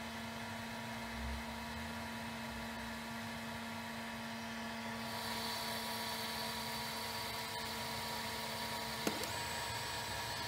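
Fabrikator Mini 3D printer running while it heats up: a steady fan hiss with a low hum and faint electrical whines. About halfway through, the hiss and a high whine get louder. A sharp click comes near the end, after which the low hum stops.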